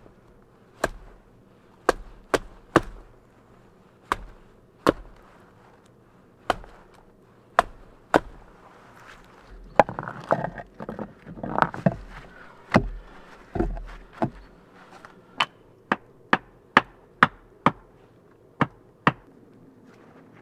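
Sharp single chopping strikes of a blade into a birch pole, irregularly spaced and about two dozen in all. Around the middle come a few seconds of rustling and scraping.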